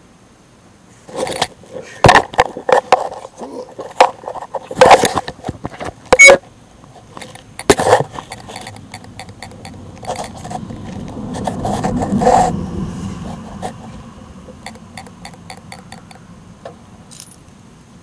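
Handling noise from the camera as it is picked up and moved: a string of sharp knocks, clicks and scrapes, the loudest in the first half. Then comes a swell of low rumbling noise that rises and fades, and a quick run of light ticks near the end.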